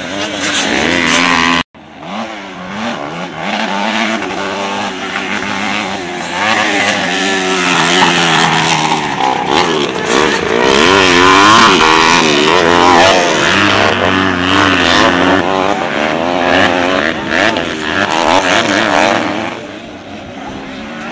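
Motocross dirt bike engines revving hard, their pitch climbing and dropping again and again with throttle and gear changes, with several bikes overlapping at times. The sound cuts out for an instant about two seconds in.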